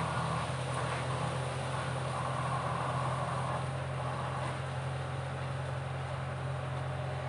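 Steady low mechanical hum, like a running motor, under faint background noise.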